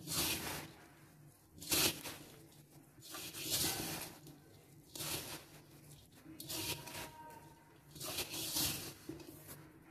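A hand mixing and squeezing crumbly maida-and-hot-milk parotta dough in a bowl: a rough scrunching, squishing sound about six times, one every second and a half or so.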